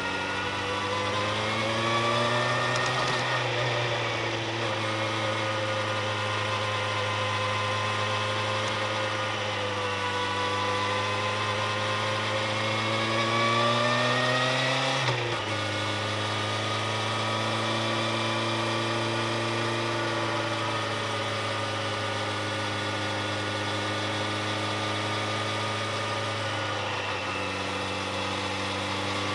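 Motorcycle engine running under way, its pitch rising and falling gently with the throttle. About halfway through it climbs for a few seconds, then drops suddenly and runs on steadily.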